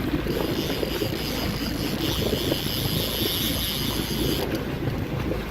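Wind buffeting the microphone over the steady running of a charter fishing boat's engine, with a higher hiss joining about two seconds in and stopping suddenly near the end.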